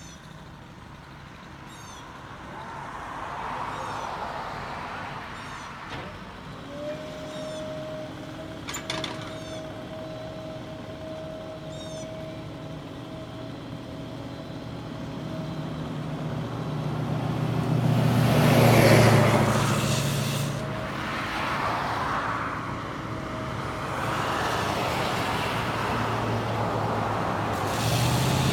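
Motor vehicle engine noise with a steady whine. It swells to its loudest about two-thirds of the way through, then eases.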